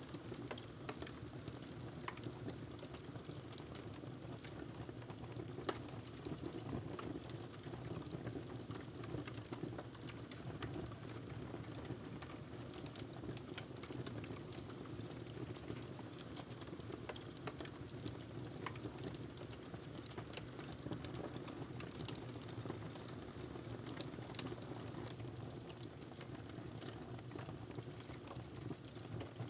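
Wood fire crackling in a fireplace: scattered small pops and snaps over a steady low rush.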